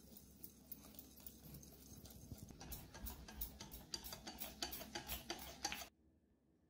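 Wire whisk beating liquid batter in a bowl, its tines clicking rapidly against the bowl's side. The ticking grows louder over the last few seconds and stops abruptly near the end.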